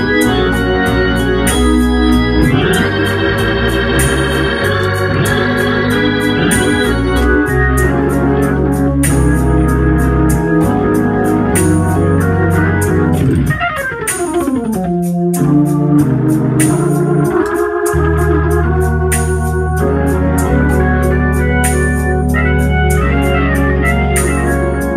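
Hammond organ played solo: sustained chords over held bass notes, with a falling glide across the notes about halfway through.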